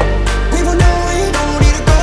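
Background pop/R&B song with a steady beat: a sung melody over deep kick-drum strokes.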